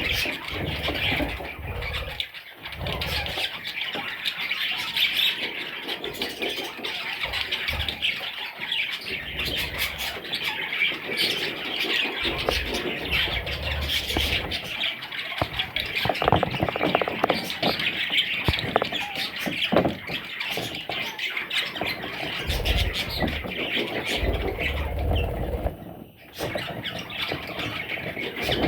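A flock of budgerigars chattering, chirping and squawking without pause, with occasional low bumps.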